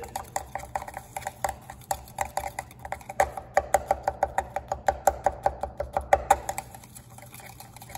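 A thermometer used as a stirring rod clinks rapidly against the wall of a glass beaker as it stirs a thick, wet slurry of crystals. The clicks come several a second with a light glassy ring, busiest in the middle and thinning out near the end.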